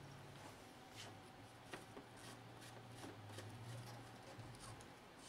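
Near silence: a faint steady low hum with a few faint light clicks and taps.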